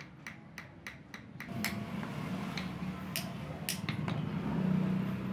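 Small hammer tapping metal pins into a wooden knife handle on a steel block: quick light taps about five a second, then from about a second and a half in, a few slower, harder strikes. A low rumble builds underneath.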